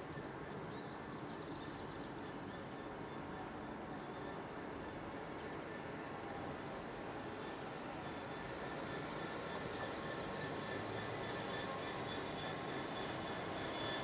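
Class 66 diesel-electric locomotive approaching, the drone of its two-stroke EMD V12 engine growing slowly louder as it nears. Faint high chirps, likely birds, sound over it.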